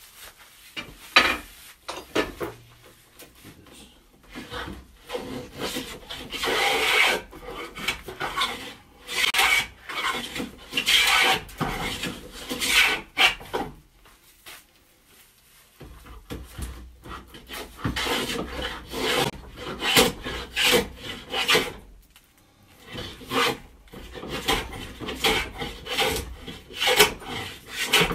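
Stanley 45 combination plane cutting along a wooden strip for a picture frame, blade shaving the wood in quick repeated push strokes. The planing stops twice for a second or two.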